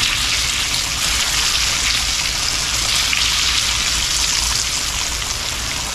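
Flour-dredged chicken pieces sizzling steadily in shallow melted shortening in a cast-iron skillet, a constant crackling hiss like rain.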